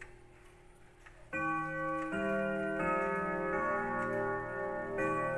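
Grandfather clock's chime movement ringing a chime melody, one ringing note after another about every 0.7 seconds. It starts about a second in, after faint ticking, and is set off by turning the minute hand to twelve.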